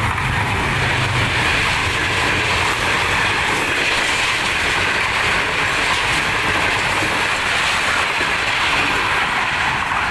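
A Pakistan Railways diesel locomotive passes close by, its engine hum fading within the first second or so. Then comes the steady wheel-on-rail noise of a line of passenger coaches rolling past.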